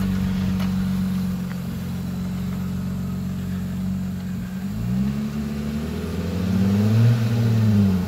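Jeep Wrangler JL Rubicon engine idling steadily, then revving up from about five seconds in as it works in the mud, easing off slightly near the end.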